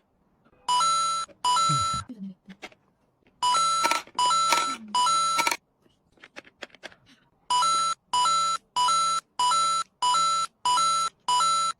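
Electronic beeping: loud, identical half-second beeps at one steady pitch, two near the start, then three, then a fast run of eight, with faint clicks in between.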